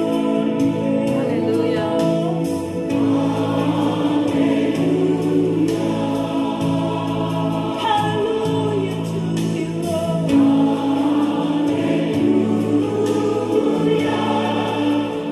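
Gospel worship music: a choir singing over steady held chords.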